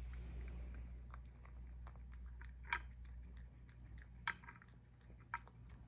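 A cat chewing dry kibble from a dish: a few sharp, scattered crunches, the loudest a little past halfway and another near the end.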